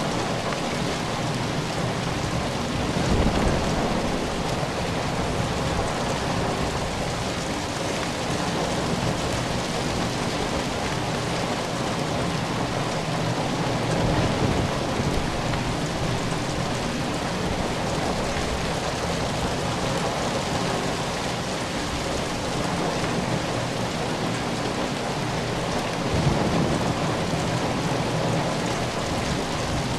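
Steady heavy rain, with three brief low rumbles of distant thunder: about three seconds in, midway, and near the end.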